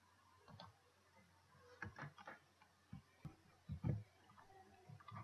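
Near silence with faint, irregular clicks from a computer mouse and keyboard.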